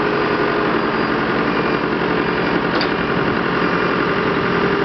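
Diesel engines of heavy equipment idling steadily together.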